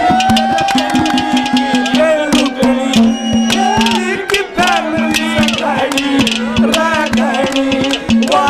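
Haryanvi ragni: a male singer holds one long note at the start, then runs on in a bending, ornamented line over fast drum strokes and a steady low accompaniment that steps between two notes.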